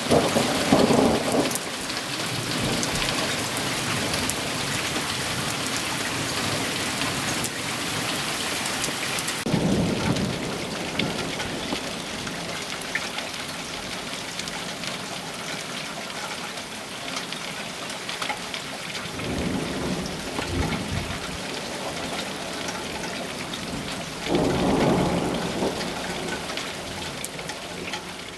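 Steady rain falling during a thunderstorm, with thunder rumbling four times: once at the start, about ten seconds in, around twenty seconds in, and again near the end.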